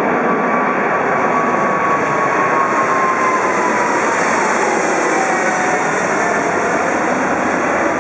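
Boeing 777-300ER's twin GE90 turbofans at takeoff thrust, a loud steady jet noise as the airliner climbs out overhead. A whining tone falls in pitch as it passes over and moves away.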